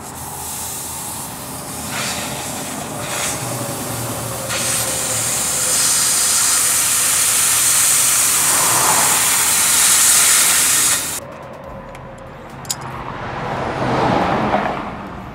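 Compressed air hissing out of the drain valve of a Freightliner bucket truck's air tank. It grows stronger about four and a half seconds in and cuts off suddenly about eleven seconds in. Near the end, passing interstate traffic swells and fades.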